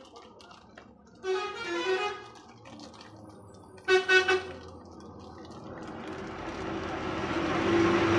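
A vehicle horn honks twice, a longer honk and then a short one, followed by a vehicle's running noise that grows steadily louder as it approaches.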